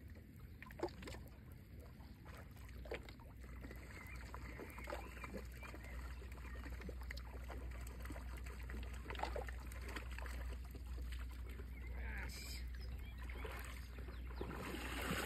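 Quiet shoreline sound of calm shallow seawater: a faint low rumble with small splashes and clicks scattered through, and a somewhat louder splash about twelve seconds in.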